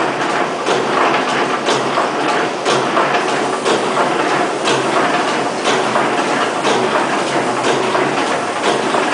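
SKY-201A fully automatic rope-tipping machine running, with a sharp clack about once a second and lighter clicks between, over a steady mechanical whirr.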